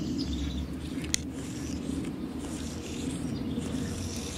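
Small birds chirping over steady low outdoor background noise, with a single sharp click about a second in.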